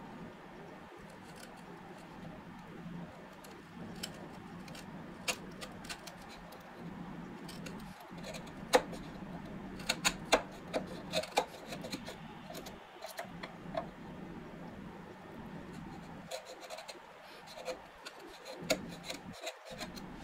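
A bench chisel pushed by hand, paring waste out of a hand-cut mitred dovetail in hardwood. The edge scrapes through the wood, with sharp clicks and snaps as chips break away, most of them about halfway through and a few more near the end.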